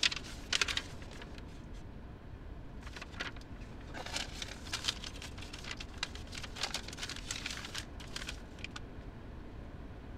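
Steady low rumble inside a car cabin, with brief clusters of small clicks and rattles about a second in and again from about four to eight seconds in.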